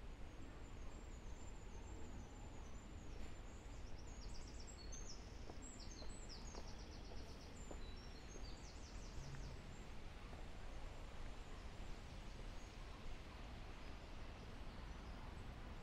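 A small songbird sings a run of high, quick trilled phrases from about a second in until about halfway through, over a steady low outdoor rumble.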